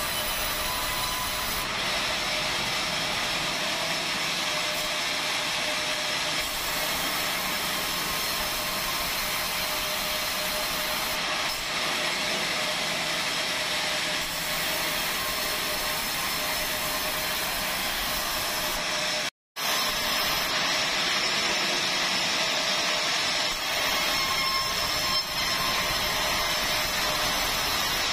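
Sawmill bandsaw cutting a wooden plank as it is fed through the blade: a continuous, even sawing noise with a faint constant whine. The sound drops out for a split second about two-thirds of the way through.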